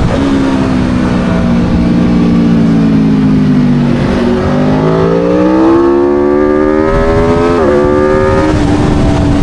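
Aprilia Tuono V4 motorcycle's V4 engine on track: its pitch falls for about four seconds as the bike slows, then climbs hard under acceleration, drops sharply once at an upshift, climbs briefly again and then holds steady. A steady rush of wind noise runs underneath.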